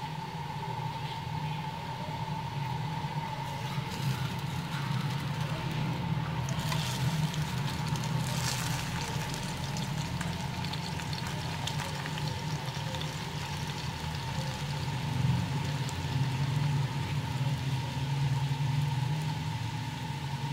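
Methi paratha frying in ghee on a hot tawa, a steady sizzle with crackles that grows louder for a few seconds in the middle. Under it runs a steady low hum.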